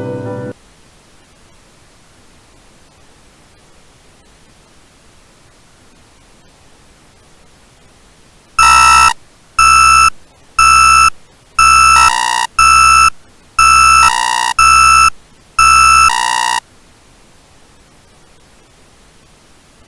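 Low, steady hiss of static, then a loud electronic alert tone: eleven harsh, buzzy beeps over about eight seconds, roughly one a second, three of them followed straight away by a lower beep. It works as the attention signal of a mock emergency alert broadcast.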